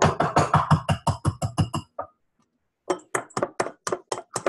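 A utensil rapidly hand-beating in a ringing mixing bowl: a quick run of about a dozen clicking strikes, a short pause, then a second run of about eight.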